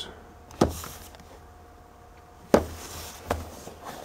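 A cardboard box being handled and turned over in the hands: a few sharp knocks and taps, the loudest about two and a half seconds in, followed by a brief scrape of cardboard.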